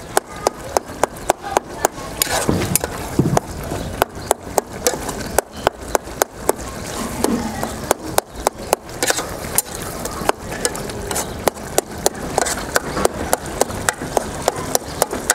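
Metal spoon stirring a thick okra and tomato stew in an aluminium pot, clinking and scraping against the pot a few times a second at an irregular pace.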